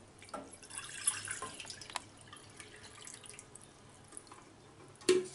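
Water poured from a plastic jug into an empty stainless steel saucepan, splashing most loudly over about the first two seconds, then faint trickling and drips.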